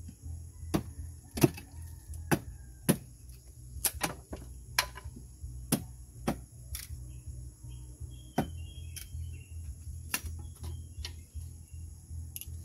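Machete chopping at a wooden pole: a dozen or so sharp strikes at an uneven pace, growing sparser near the end. Insects keep up a steady high buzz underneath.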